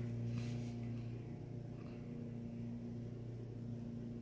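Steady low electrical hum, with a brief faint rustle about half a second in.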